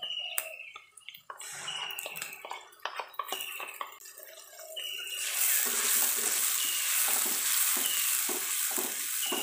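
A spoon scraping and tapping a plastic bowl as curry paste mixed with chilli is emptied into a steel wok. From about five seconds in, a loud sizzle of the paste frying in hot oil with onions, with a wooden spatula stirring and scraping the wok.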